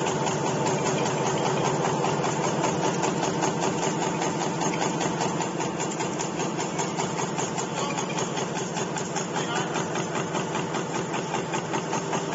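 High-speed mechanical punch press running continuously, stamping in a rapid, even rhythm over a steady motor hum.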